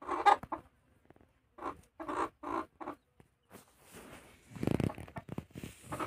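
Desi mother hen clucking in short calls: a loud one at the start, then about four in quick succession around two seconds in. In the second half the calls give way to a rustling, thumping noise.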